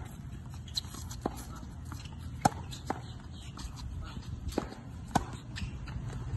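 Tennis balls being struck with racquets and bouncing on a hard court in a rally: sharp pops about every half second to second and a half, the loudest about two and a half and five seconds in.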